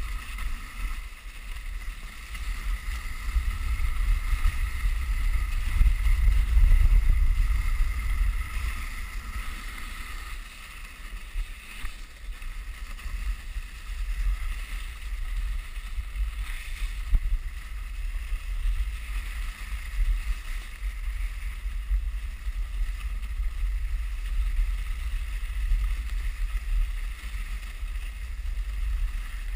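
Dog sled running along a packed snow trail: a steady hiss of the runners sliding over snow, under a low wind rumble on the camera microphone that swells a few seconds in.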